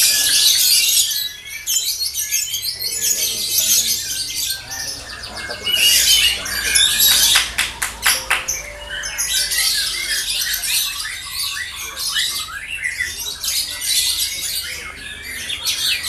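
Caged lovebirds chattering in long runs of rapid, high-pitched calls, the 'ngekek' song judged in lovebird contests. A few sharp clicks come about halfway through.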